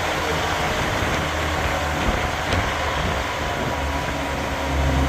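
Steady low rumble and hiss of a vehicle in motion.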